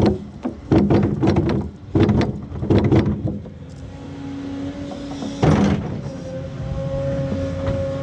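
Excavator diesel engine running steadily, broken by a run of loud clanks and knocks in the first few seconds and one more about halfway through.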